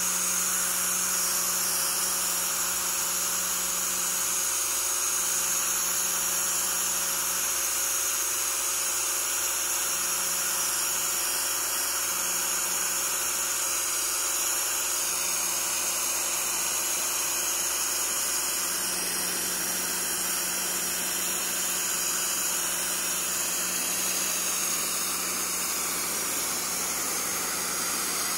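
Pressure washer running steadily, its pump motor humming under the hiss of the high-pressure water jet blasting grime off a plastic Coleman Ram-X canoe hull.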